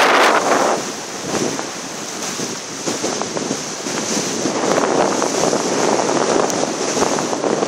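Wind buffeting the microphone over the rush and splash of choppy water in a fast spring-tide current. The wind drops about a second in and builds again a few seconds later.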